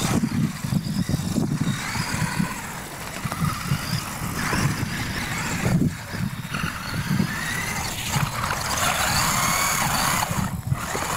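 Radio-controlled monster trucks racing on a dirt course: a motor whine that rises and falls with the throttle over a steady rumble of tires on dirt.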